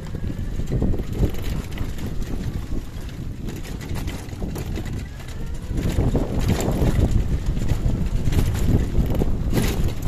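Wind buffeting the microphone: a rough low rumble that eases off for a few seconds, then swells louder about six seconds in.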